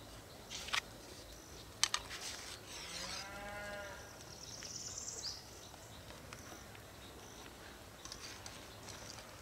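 A single drawn-out animal call, about a second long, that rises and falls in pitch about three seconds in. A few light clicks come before it, and a short rising bird chirp follows soon after.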